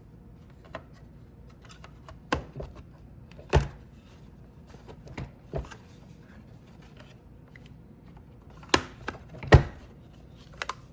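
Scattered plastic clicks and knocks from handling the reassembled Roomba 960 and its parts, about eight separate taps, the loudest pair about nine seconds in.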